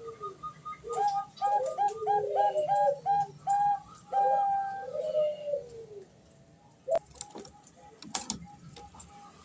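Female zebra dove (Bangkok perkutut) cooing: a run of short coos starting about a second in, ending in longer drawn-out notes, over faint evenly repeated pips. A few sharp clicks near the end.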